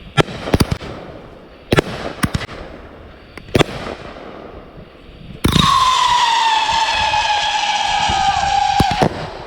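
Consumer fireworks going off: several sharp bangs in the first few seconds, then a whistling firework screaming for about three and a half seconds, its pitch falling slowly before it cuts off.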